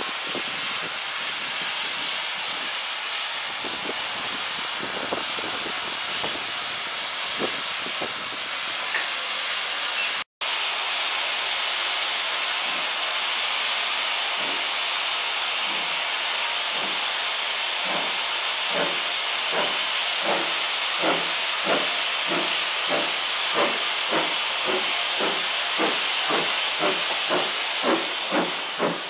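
Steam locomotives hissing steadily, with a brief cut just over a third of the way through. In the last third an LMS Ivatt Class 2 2-6-0 steam locomotive pulls away, its exhaust chuffs quickening and growing louder as it passes close by.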